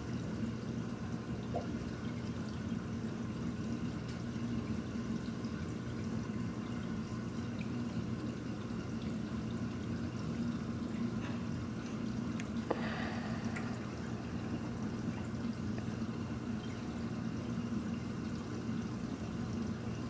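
Reef aquarium's water circulation: steady running, trickling water over a low, even hum from the pumps, with one brief louder drip about 13 seconds in.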